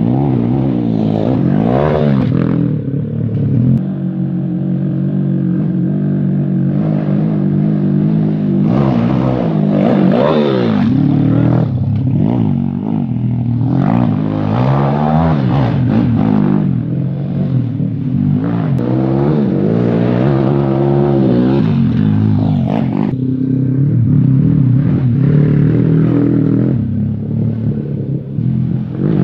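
Small petrol engine of a child's off-road vehicle running and revving up and down over and over, its pitch rising and falling as it rides the dirt track.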